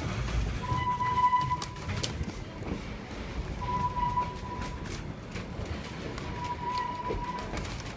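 Kuranda Scenic Railway train running along the track: a steady low rumble with scattered clicks, and a high steady squeal that comes and goes several times.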